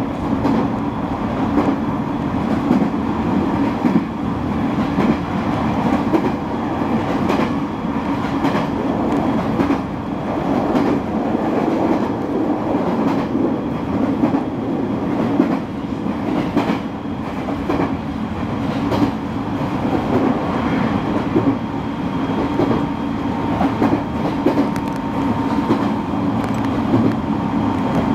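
JR East 209 series 2100-subseries electric train running between stations: a steady rumble of wheels on rail, with occasional clicks as the wheels pass over rail joints.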